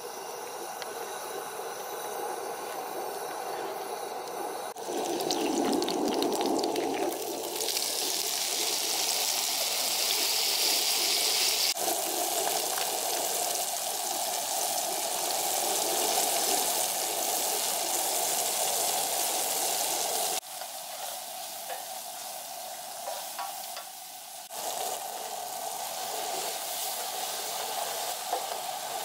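Onions and cherry tomatoes sizzling in a frying pan as they are stirred, in several short clips cut together so the sizzle changes abruptly a few times.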